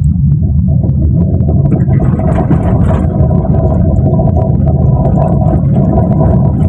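Road rumble inside a Perodua Myvi driven over rough, uneven tarmac, with many small quick rattling knocks from the front suspension. The mechanic traces this rattle to play in a front lower-arm ball joint.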